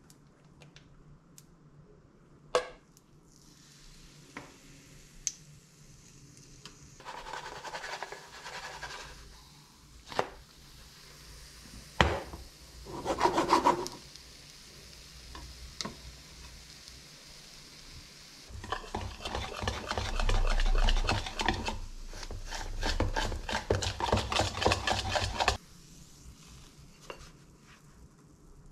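Pancake batter sizzling faintly in a stainless frying pan, with spatula scraping and knocking against the pan. The loudest part, about two-thirds of the way through, is a long run of quick scraping strokes as the pancake is worked loose and lifted out.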